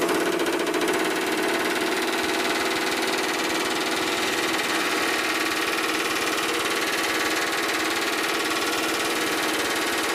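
Pneumatic rivet gun hammering a rivet into a steel plate: a rapid, continuous rattle of blows that runs steadily.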